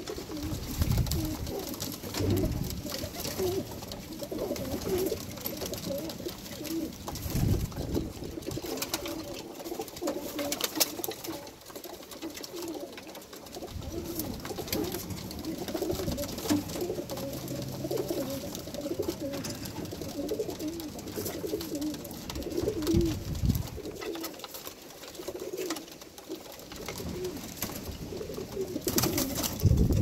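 Birmingham Roller pigeons cooing continuously while they feed, with scattered sharp clicks of beaks pecking grain on a wooden feed tray. A few low thumps, the loudest near the end, come from birds jostling and flapping.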